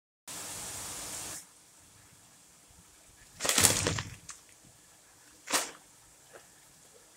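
A plastic bag of frozen mixed vegetables crinkling loudly as a hand grabs it, about three and a half seconds in, with a second short rustle about two seconds later. Near the start, after a brief dropout, a steady hiss lasts about a second.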